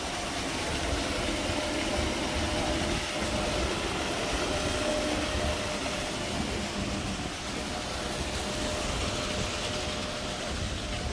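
Steady low rumble of a running vehicle, with a faint steady hum above it.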